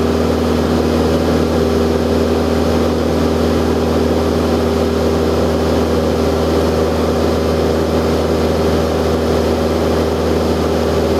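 Cessna 172's piston engine and propeller giving a loud, steady drone at constant power, with no change in pitch.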